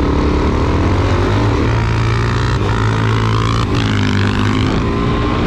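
Motorcycle engines accelerating hard from a standing start, climbing in pitch through the gears, with gear changes about two and a half seconds in and again just under four seconds in.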